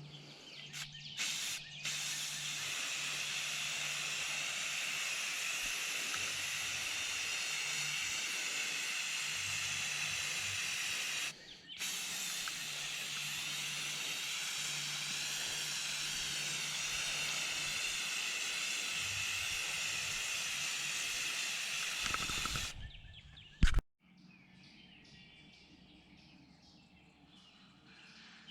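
A spray hisses steadily for about twenty seconds with one short break, then stops, and a single sharp knock follows.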